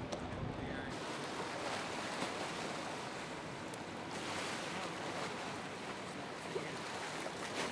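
Harbour ambience: a steady wash of water and wind noise, changing in character about a second in and again about four seconds in.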